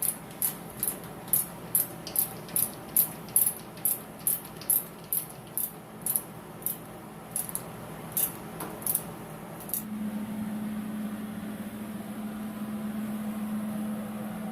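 Sharp, light metallic clicks at roughly two a second, stopping a little before ten seconds in, followed by a steady low hum.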